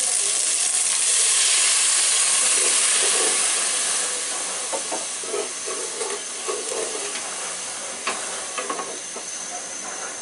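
Water added to a hot pot of browned beef hissing and sizzling: the hiss is loud at first and dies down after about four seconds. A wooden spatula scrapes and stirs the meat in the pot through the second half.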